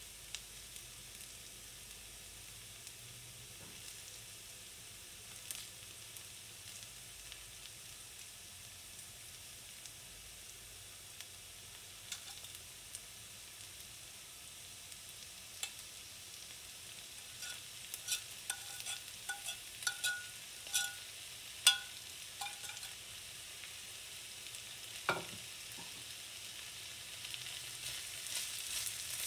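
Sliced onions sizzling in oil in an enamelled pan, a steady hiss. In the second half comes a run of light ringing clinks and then a single thump. Near the end the sizzle grows louder as chopped bacon is stirred in with a wooden spoon.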